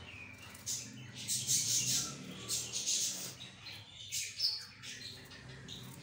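A knife cutting small pieces off a raw potato held in the hand: a string of short, crisp cuts, with birds chirping in the background.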